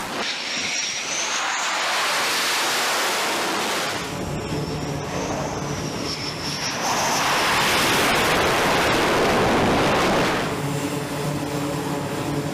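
Jet aircraft engines on a carrier flight deck: the engine noise swells twice with a high turbine whine over it, then settles into a lower, steadier hum near the end.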